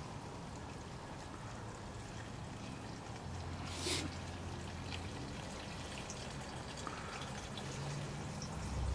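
Quiet outdoor ambience through a compact camera's built-in microphone, with a faint low hum around the middle and a brief rustle about four seconds in.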